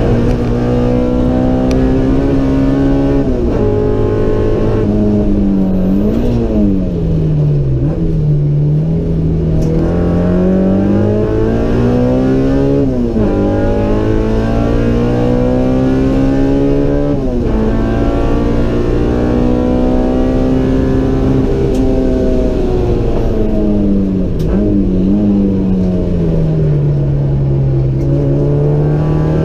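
Honda B18C four-cylinder engine, stroked to 1943 cc, heard from inside the Civic's cabin through its custom header and exhaust, working hard around a track lap. The revs fall and climb again, drop sharply twice a few seconds apart as it shifts up near the middle, then fall away for a long stretch and start rising again near the end.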